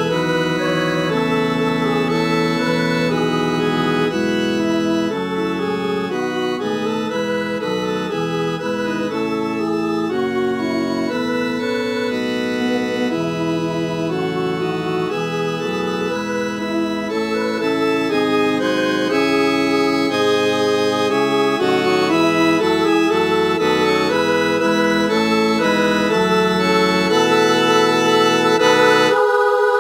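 Computer MIDI playback of a four-part Christmas choral anthem in organ-like synthesized tones, an alto-part practice track: several lines held steadily and moving together from chord to chord, with no singing. The lowest part drops out for a moment near the end.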